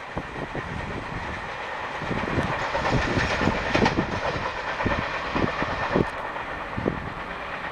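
Train coaches rolling past at speed: wheels knock irregularly over the rail joints over a steady rushing noise, growing louder about two seconds in.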